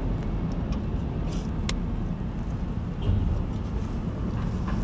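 Steady low rumble of an angkot minibus running, heard from inside its passenger cabin, with a single sharp click a little under two seconds in.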